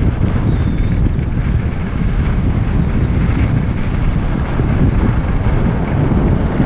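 Wind buffeting the microphone of a camera carried by a skier going downhill at speed: a steady, loud low rumble.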